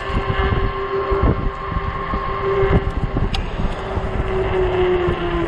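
An Ecotric 48 V fat-tire e-bike's electric motor whines at a steady pitch under pedal-assist power, with wind gusting over the microphone. Near the end the whine slides down in pitch as the bike slows.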